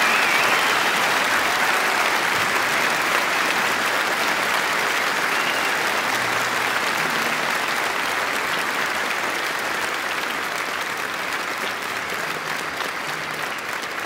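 Large concert audience applauding, the clapping slowly dying down.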